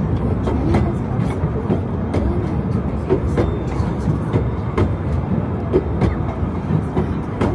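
Jetty tourist train running close by: a steady low rumble with scattered short clicks.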